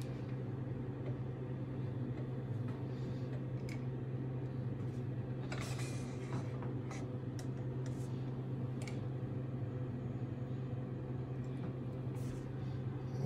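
A steady low hum with a few faint, scattered clicks and taps.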